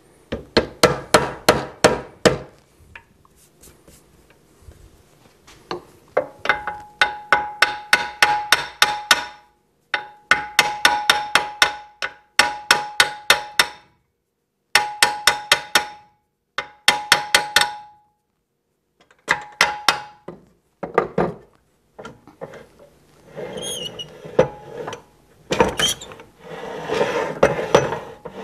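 A hammer tapping on the metal lathe bed in quick runs of blows, about four or five a second, several runs with short pauses between them, many blows ringing with a clear metallic tone. Near the end the tapping gives way to softer scraping and rubbing of metal parts.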